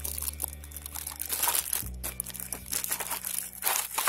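Clear plastic wrapping crinkling and crackling as a wrapped motorcycle fairing part is handled, over background music with steady low notes that change about two seconds in.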